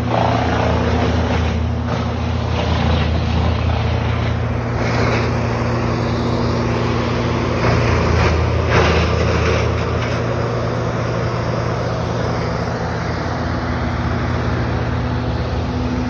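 An engine running steadily with a low, even hum, under a rushing noise that swells briefly a few times.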